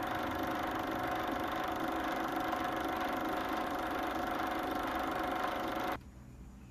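A steady hum of noise and a few held tones that cuts off suddenly about six seconds in.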